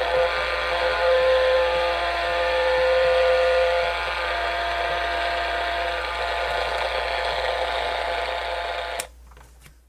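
Grundig FR-200 world band radio's speaker putting out a steady loud hiss of static, with faint steady whistling tones over it, then cutting off suddenly about nine seconds in.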